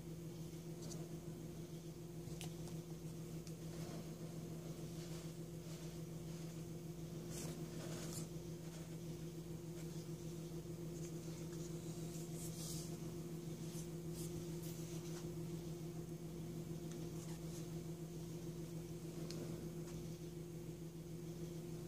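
A steady low electrical hum, with faint, scattered rustles and soft clicks of hands handling modelling dough and small plastic Play-Doh tubs.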